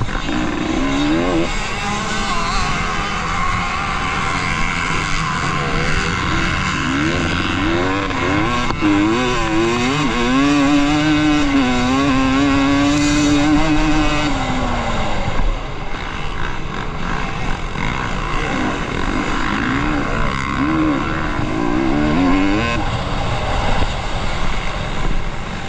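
Off-road motorcycle engine racing over a cross-country course, its pitch rising and falling again and again with the throttle, held high for a few seconds about halfway through.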